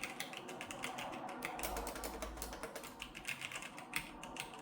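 Typing on a Logitech G613 wireless mechanical keyboard: a quick, irregular run of key clicks, demonstrating how its mechanical switches sound.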